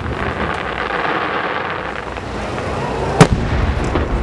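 Fireworks display: a steady crackling hiss, then one loud, sharp boom of an aerial firework shell bursting about three seconds in, with a weaker bang just before the end.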